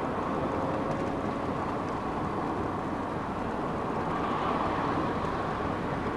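Steady road and wind noise inside a car cruising at highway speed, about 65 mph.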